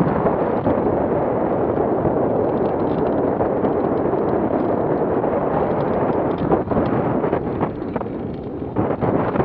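Wind from the hang glider's flight rushing over a camera microphone mounted on the wing: a loud, dense rumble with gusty buffets, easing slightly about eight seconds in.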